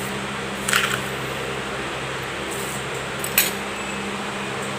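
A steady background hum, with a steel spoon scraping and clinking against a steel mixer-grinder jar twice: briefly about a second in, and a sharp click a little after three seconds.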